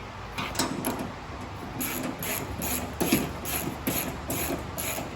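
Ratchet wrench clicking through a run of quick strokes, about three a second, as a bolt is turned.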